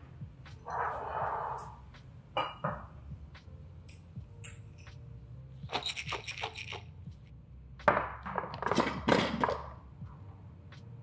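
Close-up handling sounds of packaging and a jar of dry soil-enhancer pellets: a short rustle about a second in and a few knocks, then the pellets rattle rapidly inside the jar as it is shaken, about six seconds in, followed by more clattering and scraping as the jar is set down and opened.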